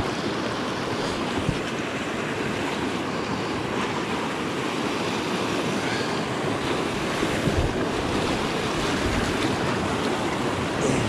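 River rapid rushing steadily around a pontoon boat as it runs whitewater, with some wind on the microphone.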